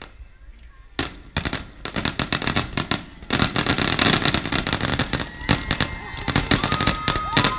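Aerial fireworks display: a barrage of rapid bangs and crackling shell bursts. The bursts start sparse about a second in and become a dense, continuous volley a few seconds in. Near the end, a couple of long, steady high tones sound over the bangs.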